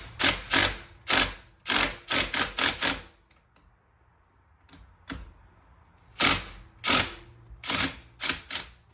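Socket ratchet clicking in short back-and-forth strokes while loosening the 17 mm steering-wheel nut. There are about a dozen strokes in two bursts, with a pause of about two seconds in the middle.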